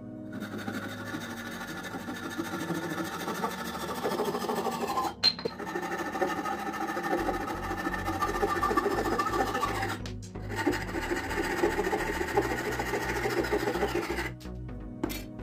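Hand saw cutting through a wooden dowel in steady back-and-forth strokes, pausing briefly about five and ten seconds in and stopping shortly before the end. Background music with a beat plays underneath.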